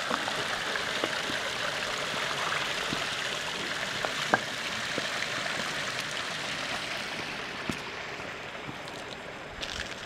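Small stream running with a steady splashing hiss that slowly fades over the last few seconds, with a few scattered clicks and knocks over it.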